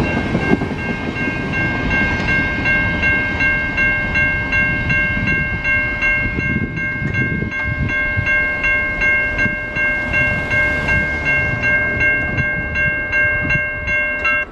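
Railroad grade-crossing bell ringing rapidly and steadily over the rumble and clatter of freight cars rolling past; the bell cuts off abruptly near the end.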